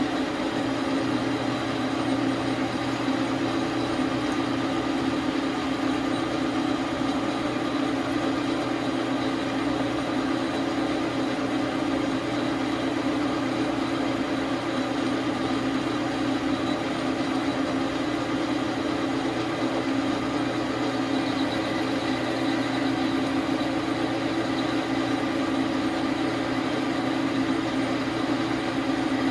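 Dar Sin 12 x 37 manual metal lathe running at a steady speed: a constant mechanical hum with fixed tones from its motor and gearing.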